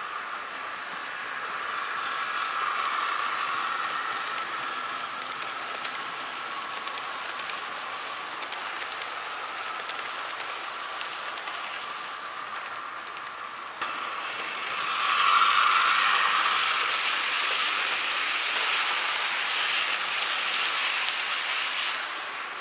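HO-scale Bachmann Great Northern F7 locomotive and passenger cars running on model track: a steady motor whine with the rattle of wheels rolling on the rails. About two-thirds of the way through it jumps louder and swells as the train passes close at full speed.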